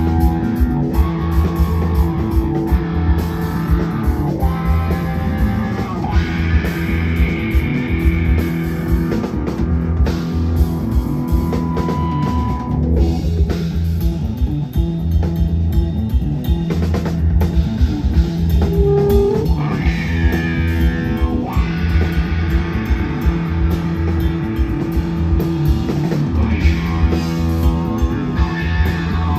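A psychedelic rock band playing live with no vocals: electric guitars over a drum-kit beat, with a repeating low riff underneath and held guitar notes.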